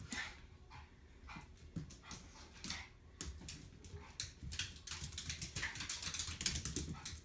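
Small dog jumping and scrabbling, its claws clicking and scratching on the vinyl floor and the door frame, with some whimpering. The clicks and scrapes come thick and fast, busier in the second half.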